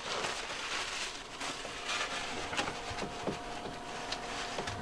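Small knocks, clicks and rustling from hands working under a kitchen cabinet, over a faint steady whine from the water pump pressurising the freshly capped shower lines.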